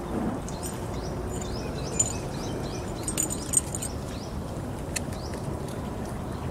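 Birds chirping, a quick run of short downward chirps repeated several times a second, over a steady outdoor background hum.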